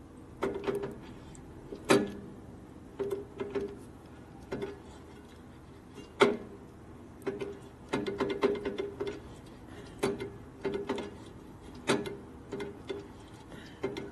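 Irregular metallic clicks and clinks, each with a short ring, from metal tools and parts being handled while the motorcycle's brakes are bled; a quick cluster of them comes about two-thirds of the way through.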